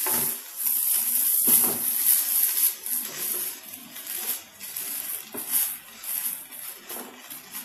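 Seasoned rice vermicelli stir-frying in a hot pan: a steady sizzle, with repeated scrapes and tosses of the spatula as the noodles are stirred.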